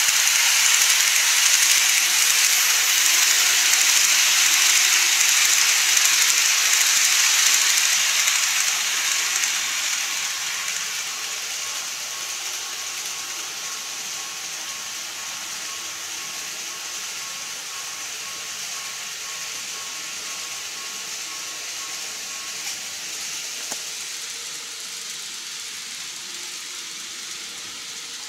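KATO E233-series N-gauge model electric train running along its track, its wheels and motor giving a steady rushing hiss that fades over the first ten or so seconds as it moves away, leaving a weaker steady running noise.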